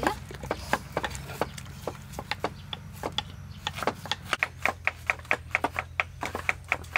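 Knives chopping banana flower on wooden chopping boards: scattered knocks at first, then from about four seconds in a quick, even run of about six sharp chops a second.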